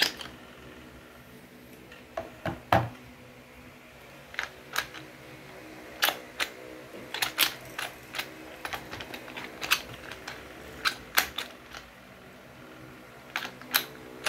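Bosch GBH 2-28 DFV rotary hammer being handled: a run of irregular sharp clicks and snaps, some in quick pairs, as its chuck and switches are worked by hand.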